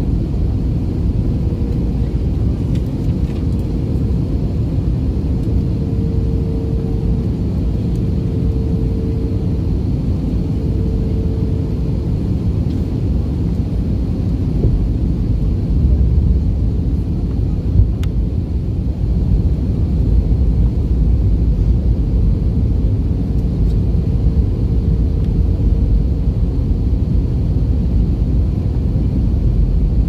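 Steady cabin noise of an airliner in flight: a low rumble of engines and airflow, with a faint hum that comes and goes.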